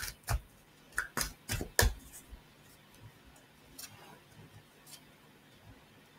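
Tarot cards being shuffled by hand: a quick run of sharp card snaps and clicks in the first two seconds, then faint scattered clicks as the deck is worked.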